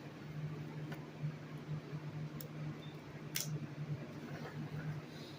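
A few sharp clicks and ticks from small laptop parts being handled during disassembly, the loudest about three and a half seconds in, over a steady low hum.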